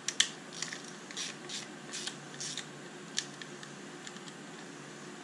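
Hand ratchet worked in short strokes, a quick run of clicks and rasps that stops about three seconds in, as it runs in the new bolts holding the IMS bearing flange on a Porsche 996 engine.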